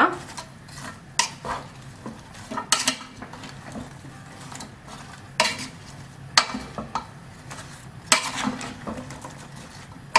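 Wooden spatula stirring and tossing chopped vegetables in a coated pan, with irregular knocks and scrapes against the pan.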